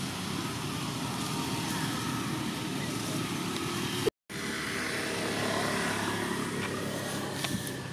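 Steady low outdoor rumble of background noise. It breaks off in a brief silent gap with a click about four seconds in, then carries on.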